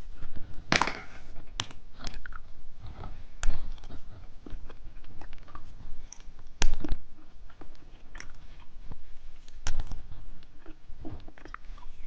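Close-miked chewing and biting of a long snake-shaped candy: irregular wet mouth clicks, smacks and crunches.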